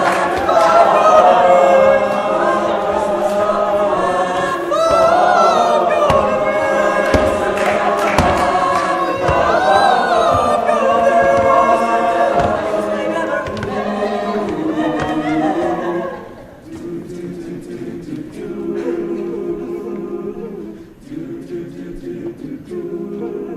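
All-male a cappella group singing in close harmony without words being picked out, with sharp clicks mixed in during the first half. About 16 seconds in it drops to a quieter, lower passage.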